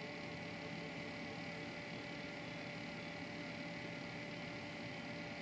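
Desktop PC case fans and a Corsair H100 liquid-cooler pump running steadily: a pretty whiny sound, several held tones over a steady hiss of air.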